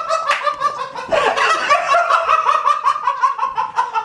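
A man laughing hard in a high-pitched, rapid cackle, with a brief catch of breath about a second in.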